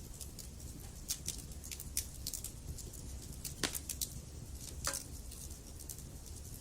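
Wood fire in a fireplace crackling: frequent small sharp pops with a few louder snaps, over a steady low rumble of the burning.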